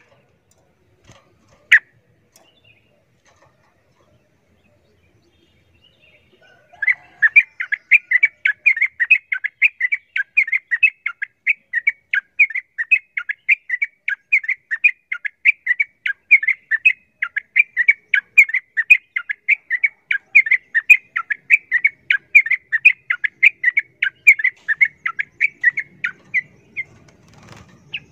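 Yellow-vented bulbul singing a fast, unbroken run of short repeated notes, about four a second, for some twenty seconds from about seven seconds in: the rapid 'ropel' fighting song of a bulbul worked up against a rival. A single sharp tap comes about two seconds in, before the song.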